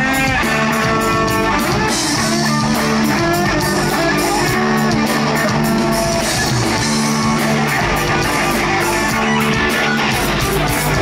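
Live rock band playing loud: electric guitars ringing out over drums with steady cymbal hits, in an instrumental passage without vocals.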